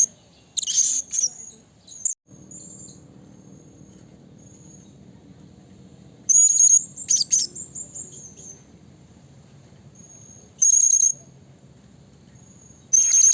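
Blue-crowned hanging parrot (serindit) calling: shrill, very high-pitched squeaky calls in short bursts, a cluster near the start, another just after the middle, and single bursts near the end, with faint thin notes between.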